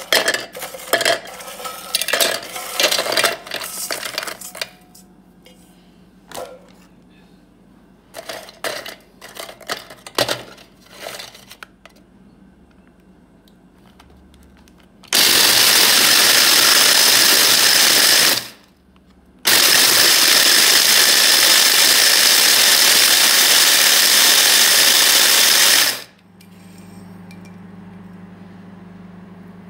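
Dry biscuits clattering as they are tipped into a plastic chopper bowl, then an electric mini chopper run in two bursts of about three and six seconds, grinding the biscuits to fine crumbs. A low steady hum follows after it stops.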